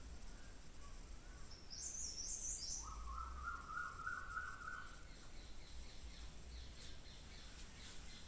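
Birds chirping: a short high trill about a second and a half in, then a lower run of repeated notes lasting about two seconds, over a faint low hum.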